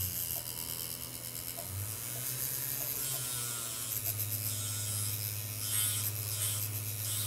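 Jeweler's rotary handpiece motor running, spinning a white abrasive disc wheel used to smooth a ring's gold bezel. A steady hum whose speed shifts a little in the first few seconds before settling.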